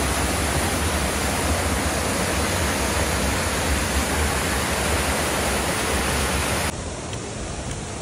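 Waterfall rushing steadily, a dense even wash of water noise with a deep rumble underneath. Near the end it cuts suddenly to a quieter, thinner rush.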